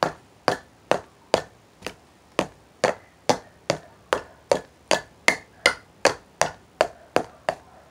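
Sharp, even knocks on a hard surface, struck one by one a little over two times a second in a steady beat that quickens slightly.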